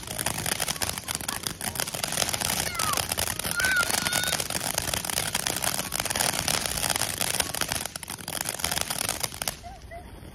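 Ground fountain firework spraying sparks: a loud, dense hissing crackle of rapid pops that dies down about a second before the end.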